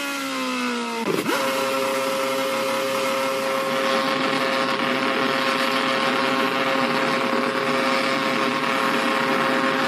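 Ferrari Formula One car's V8 engine: its note falls as the car slides across the gravel, a single impact sounds as it hits the tyre wall about a second in, and the engine then keeps running at a steady high-pitched note without letting up.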